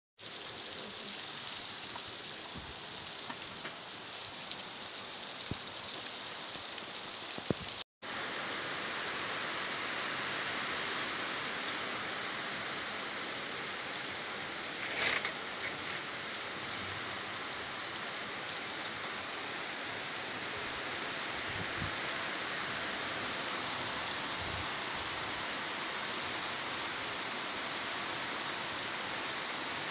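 Steady rain falling on a street, a continuous even hiss. The sound cuts out for a moment about eight seconds in, and there is one short louder sound about halfway through.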